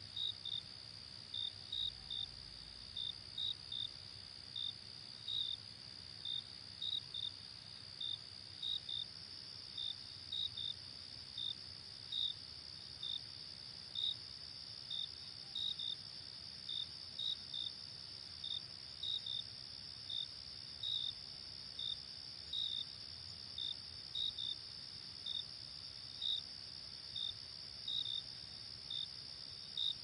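Tropical forest insects: a continuous high-pitched trill with short chirps repeating about once a second, some in close pairs.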